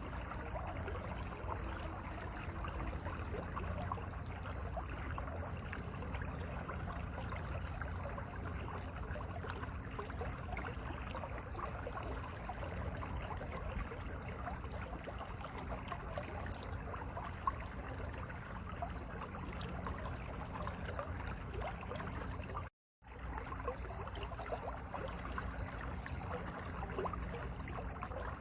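Mountain valley stream flowing steadily, with a split-second drop to silence about three quarters of the way through.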